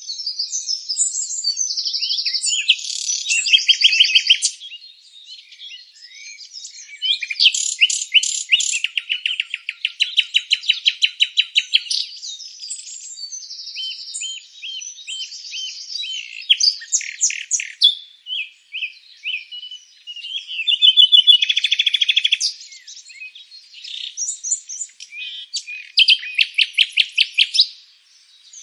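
Songbirds singing and chirping: varied chirps and warbled phrases, broken by fast trills of evenly repeated notes about eight seconds in and again near the end.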